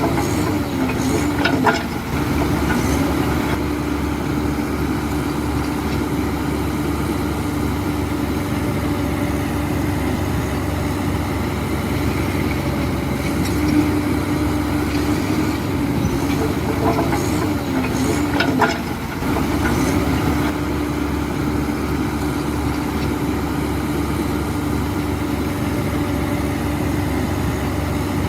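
Diesel engine of heavy earthmoving machinery running steadily, its pitch wavering slightly, with a few sharp knocks about two seconds in and again around two-thirds of the way through.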